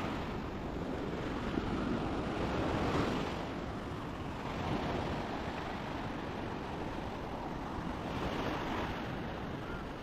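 Small waves breaking and washing up a sandy beach in a steady surf wash that swells and ebbs, with wind buffeting the microphone.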